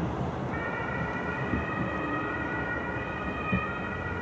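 Distant fireworks going off in a few dull low bangs over steady crowd and outdoor noise, with a steady high-pitched whine setting in about half a second in and holding.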